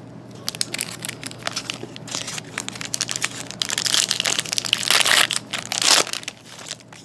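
A trading-card pack wrapper being torn open and crumpled: irregular crinkling and sharp crackles, loudest about four to six seconds in.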